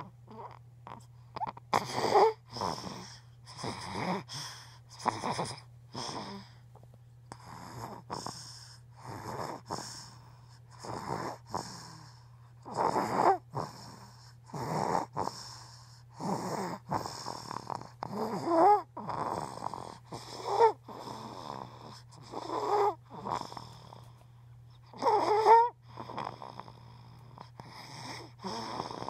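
A person snoring: short, rasping breaths about once a second, some much louder than others, a few with a wavering pitched edge, over a low steady hum. The snoring is heavy enough to be recorded for an ear, nose and throat doctor.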